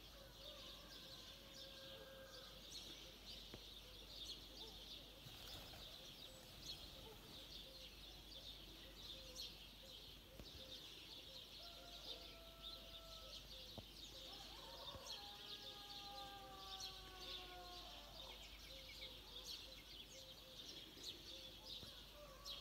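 Faint, continuous twittering of many small birds, with a constant run of short, high chirps. About two-thirds of the way in, a faint held tone with several pitches slides slightly downward for a few seconds.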